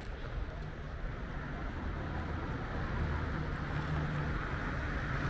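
City street ambience: a low rumble of traffic that slowly grows louder.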